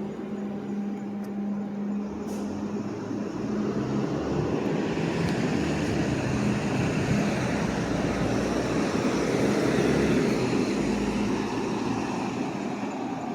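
A motor vehicle passing close by on the street: engine and road noise swell to a peak about ten seconds in, then ease off.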